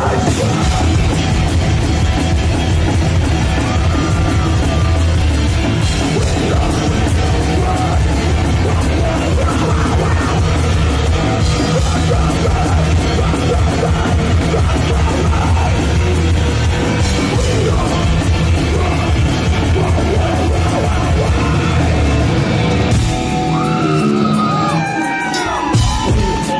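Industrial metal band playing loud and live in a small club: heavy drums, distorted guitar and yelled vocals. About two seconds before the end the heavy low end drops out, leaving a few sliding tones that rise and fall.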